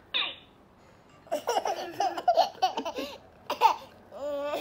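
A toddler laughing in a string of short, high bursts.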